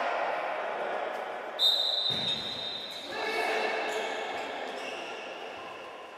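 Futsal ball being kicked and bouncing on a sports-hall floor amid players' shouts, with a high steady tone starting about a second and a half in and fading away.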